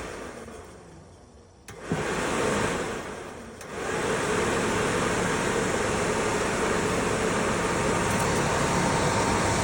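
A furnace fan motor from an old furnace, powered straight from jumper leads, runs with a steady rushing of air. It winds down first, clicks back on just under two seconds in for a short surge, then starts again about four seconds in and keeps running steadily. The motor works, and it moves enough air to push the furnace's sail (airflow) switch fully up.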